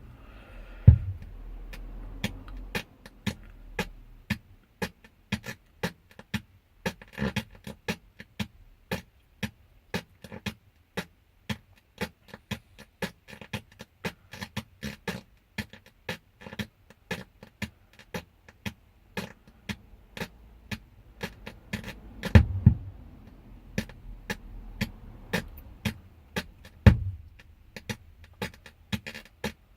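Audio from a faulty Pumpkin car stereo head unit, coming through the speakers as a thin, regular clicking beat, two to three a second. It is broken by a few loud low pops, the sign of a unit whose sound keeps cutting out and returning.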